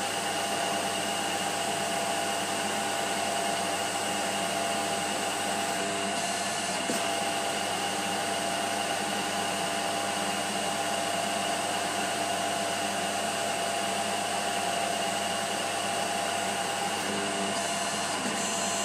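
Emco PC50 CNC lathe running a turning pass on a brass rod: a steady mechanical whine with several constant tones from the spindle drive and axis motors, taking the rod from 8.2 to 7.8 mm diameter.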